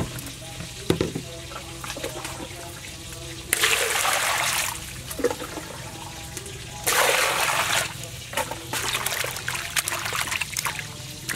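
Water rushing into a stainless steel bowl of lettuce, cucumbers and eggplants in two bursts of about a second each, then hands swishing and splashing the vegetables about in the water to wash them.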